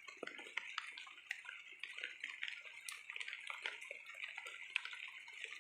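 Heavy rain falling: many irregular close drop hits tapping over a steady hiss.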